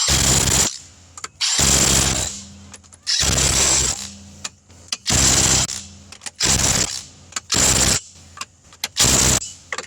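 Impact wrench running lug nuts onto a car wheel in about seven short bursts, each under a second long, with brief pauses between them.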